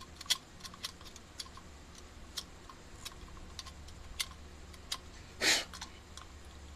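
Scattered light clicks and taps of small carburetor parts being handled, with one brief louder rustle about five and a half seconds in.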